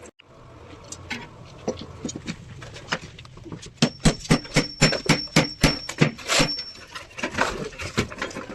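A quick run of sharp knocks, about three a second, from about four to seven seconds in, with a thin high whine held over them; scattered clicks before and after.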